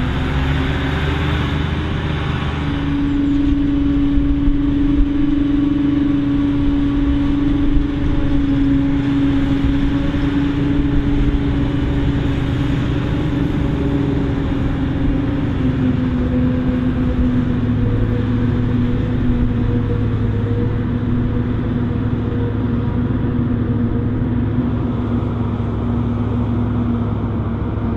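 Krone BiG X 780 self-propelled forage harvester running under load while chopping maize: a loud, steady engine and chopper drone whose pitch shifts slightly a few times.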